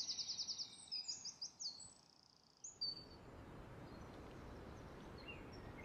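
Songbird singing: a fast, high trill of rapidly repeated notes that stops about two seconds in. After that, a faint steady outdoor hiss with a few soft, distant chirps.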